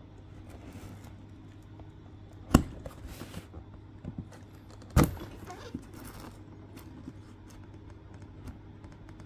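A cardboard collectible box being handled and opened by hand: cardboard rustling and scraping, with two sharp knocks about two and a half seconds apart and a few light clicks.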